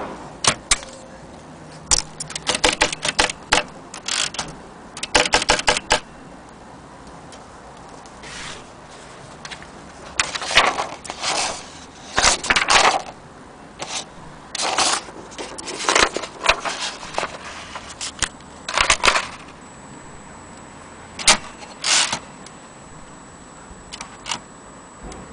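1930 Imperial Companion portable typewriter being typed on: runs of sharp key clacks in bursts, with short pauses between them.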